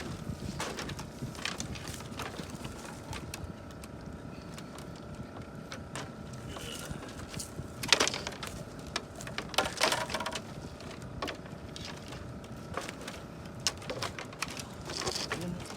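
Scattered knocks and clicks at irregular intervals, the loudest about eight seconds in, over a faint steady hum.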